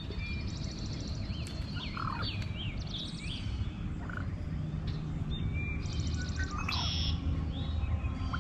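Several songbirds singing outdoors: short fast trills and rising and falling whistled chirps, one after another, over a low steady rumble.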